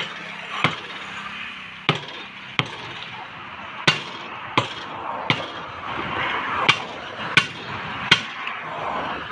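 Steel tyre lever knocking and scraping against a tractor's steel wheel rim as the tyre bead is levered off: about ten sharp metallic clicks, roughly one every 0.7 s, with rubbing and scraping between them.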